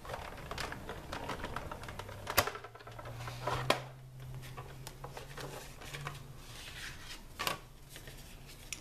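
Sizzix Big Shot die-cutting machine being hand-cranked, running an embossing folder with cardstock through its rollers: a run of small clicks with a few sharper clicks, and a low hum partway through.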